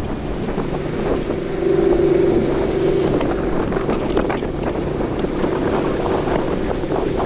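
Wake boat's engine running steadily under way, its hum swelling briefly about two seconds in, with wind buffeting the microphone and water rushing past the hull.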